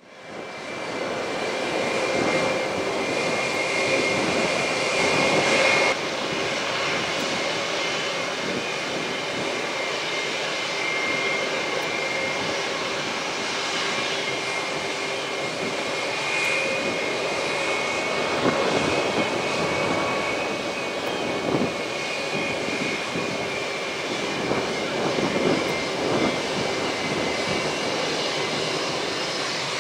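Airbus A320's twin IAE V2500 turbofan engines running at low thrust as the jet taxis: a steady high-pitched whine over a lower hum, fading in at the start.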